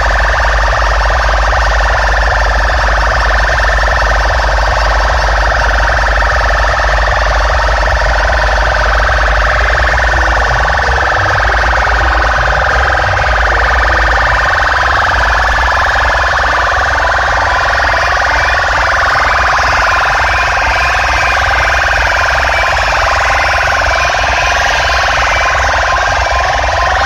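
Siren-like electronic wailing tones played through huge DJ speaker stacks at full volume, over a constant deep bass. It starts abruptly and cuts off near the end.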